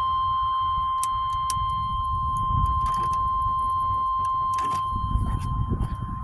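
A few sharp clicks of the replacement headlight switch being worked in a 1999 Chevy Astro van, over a steady high tone and a low rumble. The headlights still do not come on.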